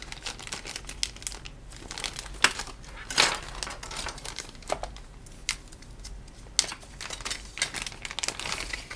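Crinkling plastic and irregular light clicks and taps as new carbon fiber drone propeller blades are handled.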